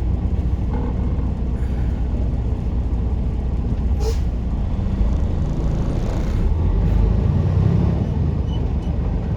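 A semi-truck's diesel engine running with a steady low rumble inside the cab. A short sharp sound about four seconds in, and a faint hiss around six seconds.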